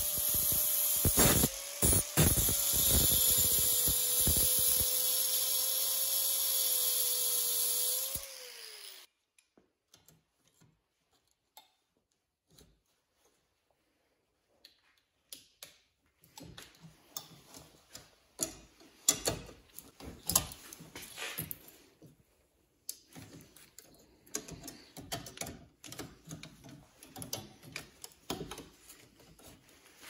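Angle grinder cutting into the aluminum cooling fins of a microwave magnetron held in a steel bench vise, running with a steady whine until it is switched off about eight seconds in and winds down. After a quiet spell, irregular metallic clicks and clinks as pliers bend and pull at the fins.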